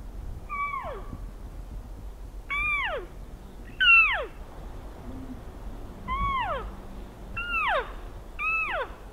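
Elk mews: six short mewing calls, each starting high and dropping steeply in pitch, spaced one to two seconds apart, the third one the loudest.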